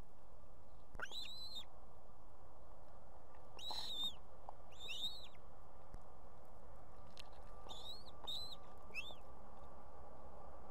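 Ospreys calling at the nest: about six short, high whistled calls that rise and fall in pitch, spaced a few seconds apart, with three in quick succession near the end, over a steady background hiss.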